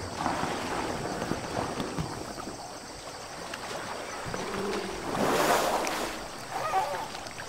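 Asian elephants wading through a muddy forest pool, water sloshing and splashing around their legs, with one louder splash about five seconds in.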